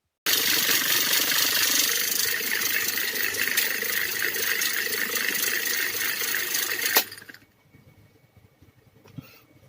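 Homemade mixer driven by an electric fan motor running steadily with a dense mechanical noise, then cutting off abruptly with a click about seven seconds in.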